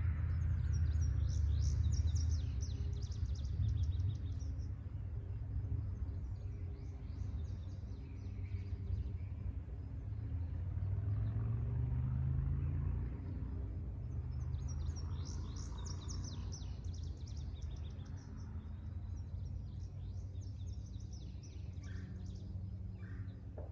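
Small songbirds chirping in quick high trills, in two main bursts with fainter calls between, over a steady low outdoor rumble; a low hum rises briefly near the middle.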